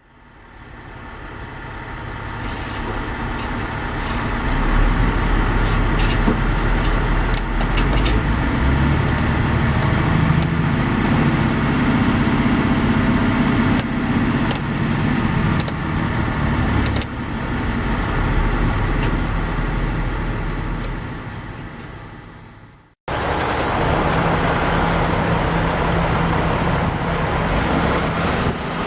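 Volvo EC210C hydraulic excavator running, its diesel engine making a steady drone that rises and falls with load, with occasional sharp metallic knocks. The sound fades in at the start, cuts off abruptly about 23 seconds in, and picks up again at once.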